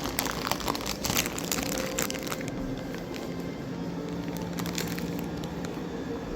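Plastic snack packaging crinkling and rustling as it is handled, thickest in the first couple of seconds and then a few scattered crackles, over a steady low hum.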